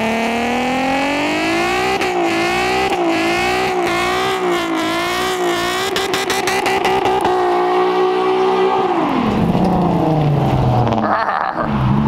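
Infiniti Q50's 3.7-litre V6 revved hard during a burnout while the rear tyres spin on the pavement. The revs rise, waver up and down near the top with sharp crackles, hold high, then drop away about nine seconds in, with one short blip near the end.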